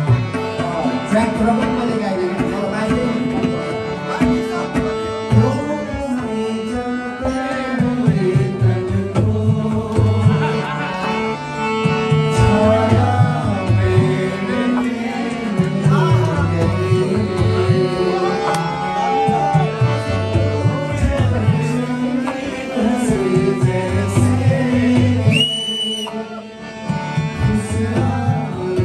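A man singing while playing a harmonium, its reeds holding sustained chords under the sung melody, with a steady drum rhythm underneath. The music dips briefly near the end, where a short high steady tone sounds.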